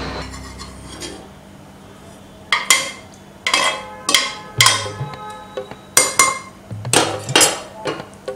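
Metal ladle scraping and knocking against the inside of a heavy cooking pot as oil is scooped from the tilted pot. A run of sharp metallic clinks about every half second begins about two and a half seconds in.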